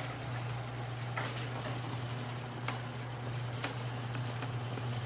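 Outdoor ambience: a steady low hum under an even hiss, with a few faint clicks about a second in, near the middle and a little later.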